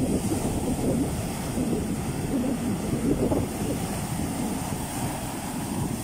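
Ocean surf breaking and washing up a sandy beach around boulders: a continuous low rushing that swells and ebbs as each wave comes in.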